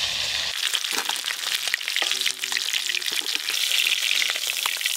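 Small pond fish frying in hot mustard oil in a kadai: a steady, crackling sizzle with many fine pops.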